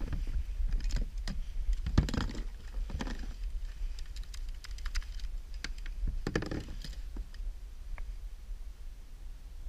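Irregular clicks, knocks and light rattles of gear being handled in a plastic kayak, thickest in the first few seconds and again after about six seconds, over a steady low rumble.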